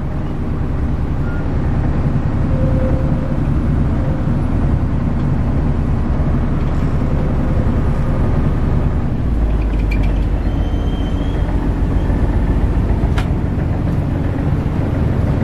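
A houseboat's engine running steadily, heard from inside a cabin as a loud low rumble. Its deepest part grows louder about nine seconds in.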